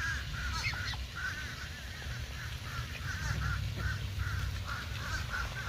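Ducks calling, a quick run of short, closely spaced calls several times a second, over a low steady rumble.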